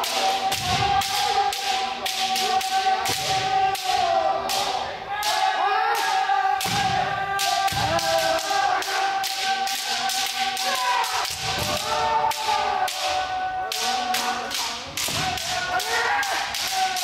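Kendo practice: many bamboo shinai clacking against armour and each other, and stamping feet on a wooden floor, in a dense run of sharp knocks. Over them, long drawn-out kiai shouts from several fencers at once.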